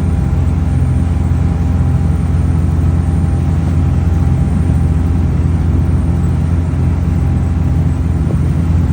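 An engine running steadily at constant speed: a loud, even, low drone that holds its pitch.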